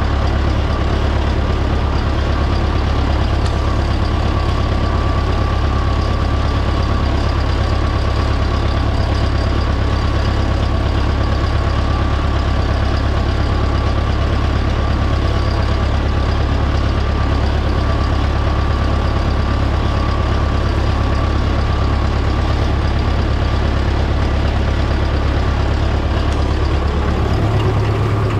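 A tractor's diesel engine runs steadily at an even pitch as the tractor drives along, a loud low drone. The drone changes slightly near the end.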